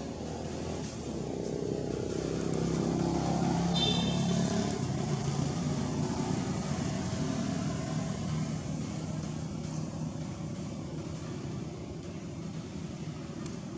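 A motor vehicle engine running, growing louder over the first few seconds and then fading away as it passes. A brief high squeak comes about four seconds in.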